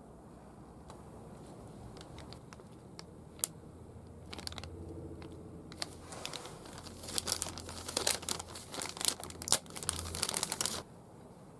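Crinkling, rustling handling noise with scattered sharp clicks. It thickens about halfway through and stops suddenly near the end, over a faint low hum.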